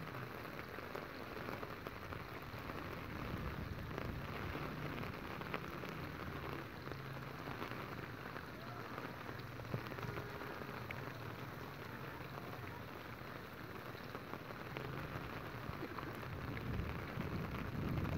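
Rain falling on standing floodwater and wet ground: a steady, even hiss with faint scattered patter.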